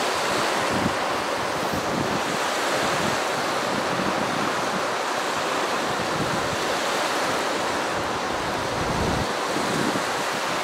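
Choppy Lake Ontario waves washing steadily against the shore, with wind gusting on the microphone as a low, uneven rumble.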